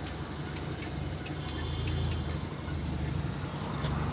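Truck engine running under load, heard from inside the cab while driving, with faint short ticks at a regular pace of about every two-thirds of a second.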